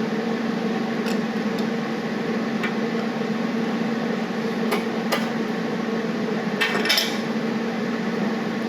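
A few sharp metallic clinks and knocks as metal parts and tools are handled, a small cluster of them about seven seconds in, over a steady low hum.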